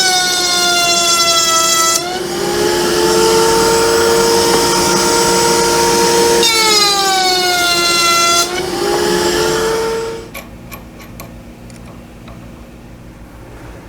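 Power saw cutting wood, likely the drawer bottom: the motor's whine drops in pitch as the blade loads up in the cut, then climbs back as it runs free, twice. The motor shuts off about ten seconds in, followed by a few light clicks.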